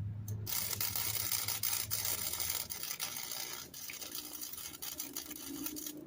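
MIG welder laying a bead to weld on the exhaust bracket, a steady crackling sizzle that starts about half a second in and stops just before the end. A low hum sits under it for the first few seconds.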